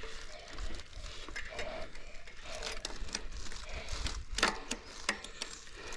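Bicycle chain and drivetrain clicking and rattling in a run of irregular short clicks as a slipped chain is worked back onto the sprockets by hand.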